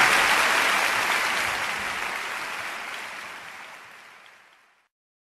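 Audience applauding at the end of a live song, the applause fading out over about four and a half seconds.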